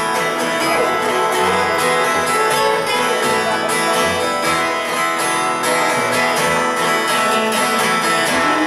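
Live band playing an instrumental passage between sung lines: strummed guitars over bass and drums, with a steady beat.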